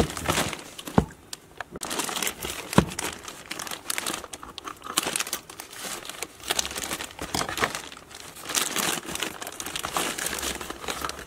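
Plastic courier mailer bag crinkling and rustling as it is handled and cut open with scissors, with two sharp clicks in the first three seconds.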